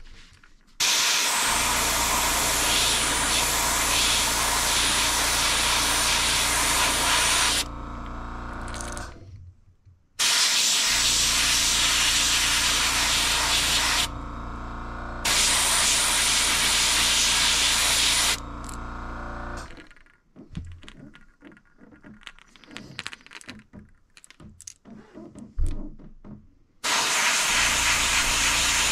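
Airbrush spraying red paint onto a crankbait's belly: a loud, even hiss of air in four long bursts of a few seconds each as the trigger is pressed and released. After each of the first three bursts a quieter hum is left for a second or so, and a long pause near the end holds small clicks and one sharp tick before the hiss starts again.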